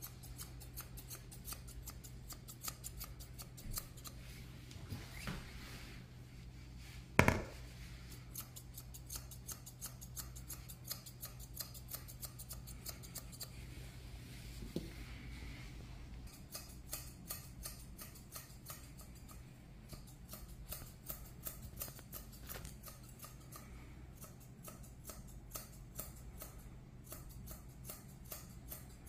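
Grooming scissors snipping through a cat's fur in rapid, repeated runs of small crisp snips, with one much louder sharp click about seven seconds in.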